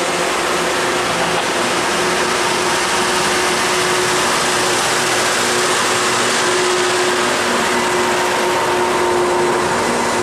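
Loram rail grinder train's genset engines and machinery running loud and steady as the train moves past, a dense rushing noise with a few steady hums on top.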